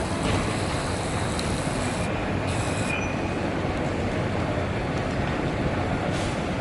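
Steady noise of a moving vehicle, with a faint brief squeal about two and a half seconds in.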